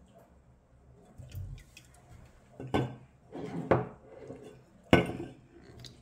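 A soda can and drinking glasses being handled on a table: a few clinks and knocks, the two sharpest about three and five seconds in.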